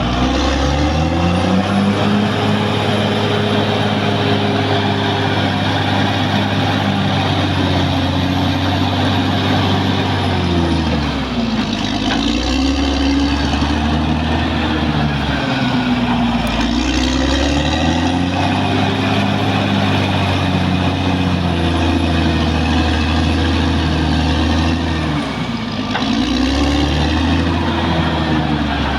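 Caterpillar D6R XL bulldozer's diesel engine running loud and steady. Its pitch sags and climbs back up a few times as engine speed changes while the machine works.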